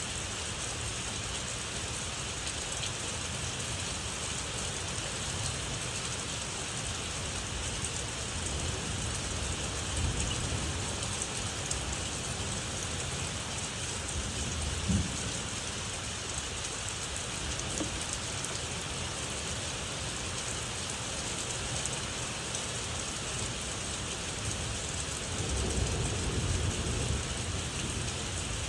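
Steady rain hissing, with low thunder rumbling underneath. There are brief swells about a third and halfway in, and a longer rumble near the end.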